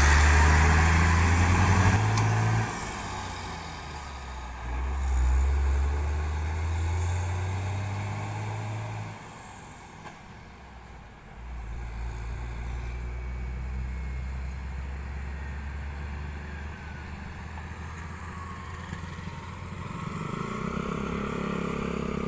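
A heavy diesel truck's engine running close by, loudest in the first couple of seconds and fading after that. Quieter road traffic with passing vehicles follows, rising a little near the end.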